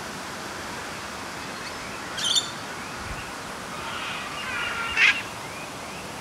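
Birds calling over a steady outdoor hiss: a short high call about two seconds in, then a run of chirps around five seconds in, the loudest sound.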